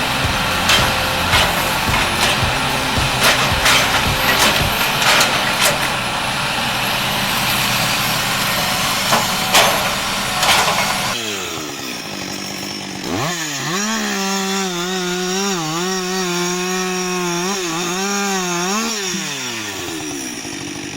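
For the first ten seconds or so, a harsh wood-cutting machine noise with many sharp cracks and knocks. After an abrupt change, a chainsaw revs up, runs at high speed with brief dips in pitch as it cuts, then slows back down near the end.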